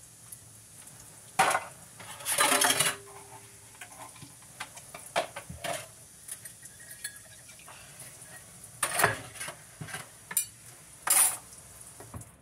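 Dishes and cutlery clattering in a kitchen sink as they are washed by hand: about six separate clinks and clatters, one ringing briefly, over a faint hiss of the running tap, which is shut off at the very end.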